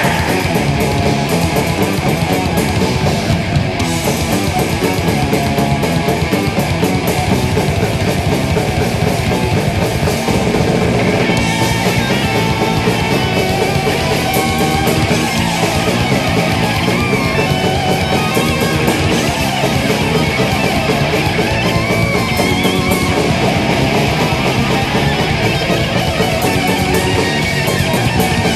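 Heavy metal band recording: distorted electric guitars over a drum kit, loud and continuous without a break.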